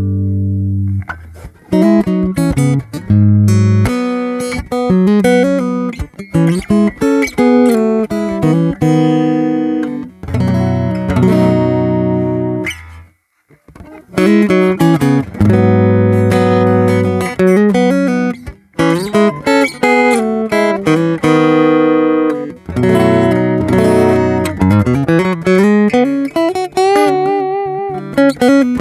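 Solo guitar playing a melody of plucked notes and chords, with a brief pause about halfway through. The instrument is a Stratocaster-bodied flat-top guitar with an LR Baggs M1 body-sensing pickup, recorded direct with no effects, giving a miked-acoustic tone.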